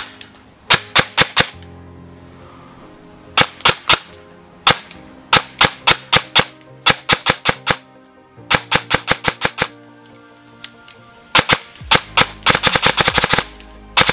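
Small airsoft electric gun (AEG) firing sharp shots in quick strings of three to eight, with a longer, faster string near the end.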